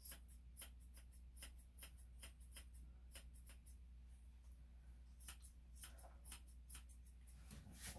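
Grooming scissors snipping a dog's fur: a run of faint, sharp snips, two or three a second, pausing for about a second and a half midway before starting again.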